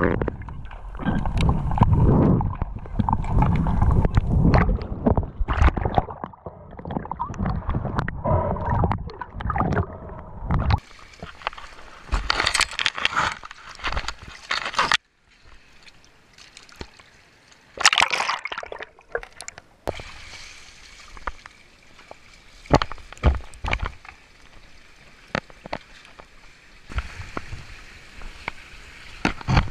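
Water sloshing, gurgling and splashing around an action camera in and at the edge of the sea, heavy and low for the first ten seconds, then sharper splashes. About fifteen seconds in it cuts off suddenly and gives way to quieter water noise with scattered knocks.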